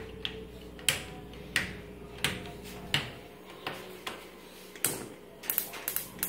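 Sharp clicks from a gas stovetop's knobs and spark igniter as the burners are turned on: single clicks about every two-thirds of a second, then a quick run of ticking near the end as the burners light.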